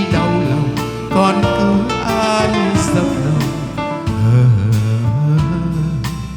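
Music: a Vietnamese song with instrumental accompaniment.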